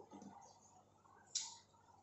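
Near silence: quiet room tone, broken once by a single short, sharp tick about a second and a half in.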